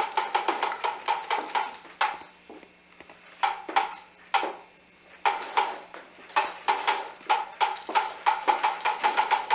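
Plastic push-along toy truck clicking rapidly as its wheels turn, about eight to ten sharp clicks a second. The clicking stops twice for about a second when the truck halts, then picks up again.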